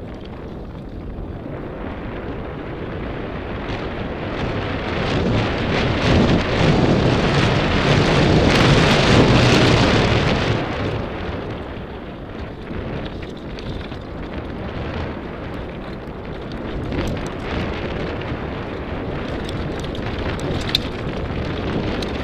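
Wind rushing over the camera's microphone and tyres rolling fast over a gravel track on a Merida mountain bike descending, with small knocks and rattles from the bike. The rush swells loudest about six seconds in and eases off after about ten, with sharper clicks near the end.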